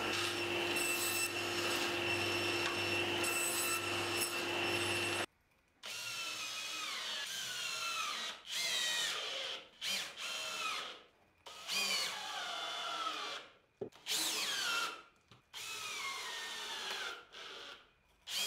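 A table saw running steadily while ripping plywood, stopping abruptly about five seconds in. Then a cordless drill-driver driving screws into plywood in a series of short bursts, its whine dropping in pitch in each as the screw pulls in.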